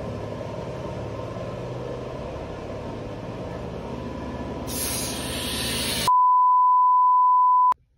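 A steady low machine hum, then, about five seconds in, a loud hiss of compressed air lasting just over a second. It is cut off by a loud, steady, high-pitched beep tone of about a second and a half that stops suddenly.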